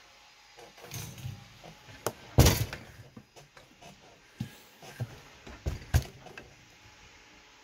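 Knocks and clatter of things being handled on a workbench: a series of short thumps and taps, the loudest about two and a half seconds in, with smaller ones over the next few seconds before it goes quiet.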